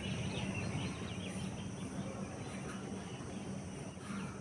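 Birds chirping in the background, in short calls during the first second and a half and again near the end, over a steady low hum.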